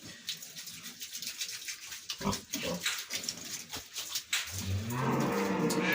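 Pig grunting: a short grunt a couple of seconds in, then a longer drawn-out grunt that rises slightly near the end, among scattered light clicks.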